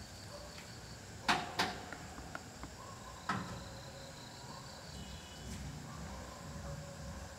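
A jackal feeding on scraps. Three sharp clicks or knocks stand out: two close together about a second in, and one about two seconds later. Under them runs a faint steady insect chirring.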